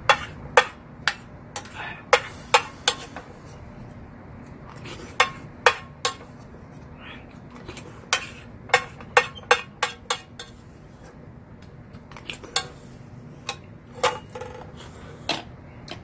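A ladle knocking against a metal pot in irregular clusters of sharp clinks, with quieter scraping between them, as the last of the ramen is scooped out.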